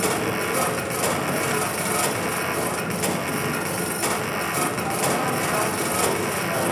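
Live electronic noise music: a steady, dense, grainy rasping texture with faint scattered crackles, without a beat or melody.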